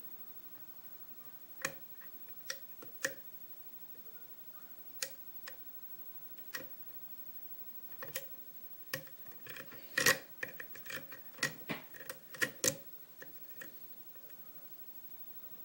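Lock pick clicking against the pins inside a Potent five-pin euro cylinder lock as it is picked: scattered light clicks, coming quickly for a few seconds in the middle.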